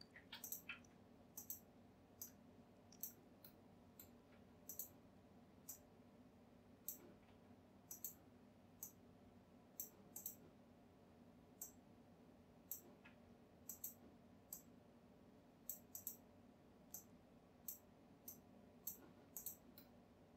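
Quiet, irregular clicking of a computer mouse and keyboard keys as 3D objects are selected and rotated, about one or two clicks a second, some in quick pairs. A faint steady low hum lies underneath.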